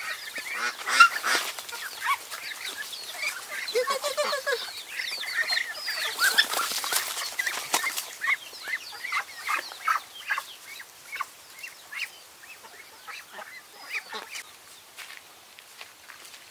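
Flock of domestic ducks and chickens calling: a steady run of short quacking and honking calls, with a brief rustling burst about six seconds in as a Muscovy duck is grabbed and flaps. The calls thin out near the end.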